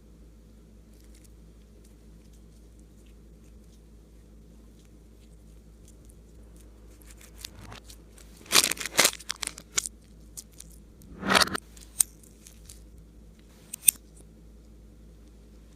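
Clay slime being handled and mixed, giving short bursts of crackling and popping: a cluster about halfway through, another a couple of seconds later, then a single sharp click near the end.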